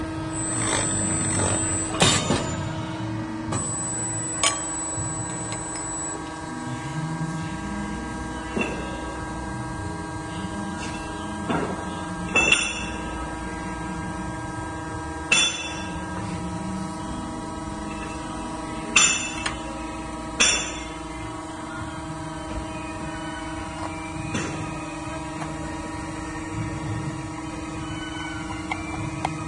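CNC pipe-end rolling machine running with a steady hum, and sharp metallic clanks that ring briefly every few seconds.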